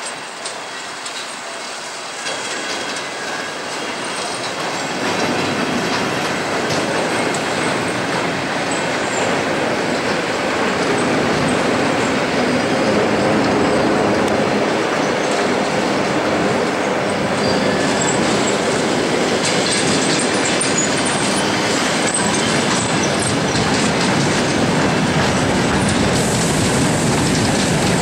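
Soviet-built electric multiple-unit trains (an ER9PK and an ED9MK) moving out over station pointwork, wheels clattering over rail joints and switches. The sound grows louder over the first five seconds as a train comes close, then stays loud as it rolls past, with a few brief high squeals near the middle.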